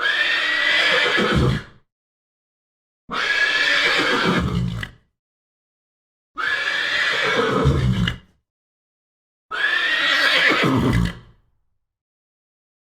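Horse neighing four times, each call about a second and a half long, starting high and dropping to a low ending, with dead silence between the calls.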